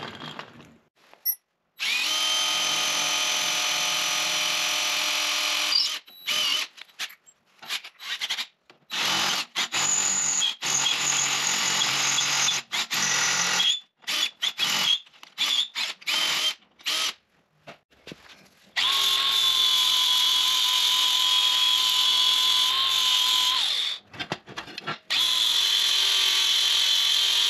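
Cordless drill boring through the steel crossbar of a drum dolly: a steady motor whine in long runs, then many short trigger bursts. About two-thirds of the way in an angle grinder runs on the same steel for about five seconds, stops briefly, and runs again.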